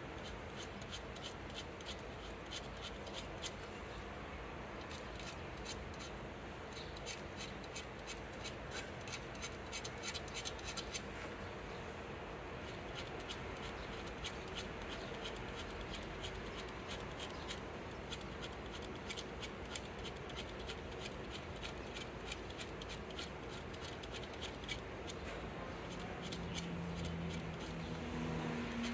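A small hand-held blade scraping lettering into the black painted shaft of a javelin: runs of quick, fine scratching strokes with short pauses between them.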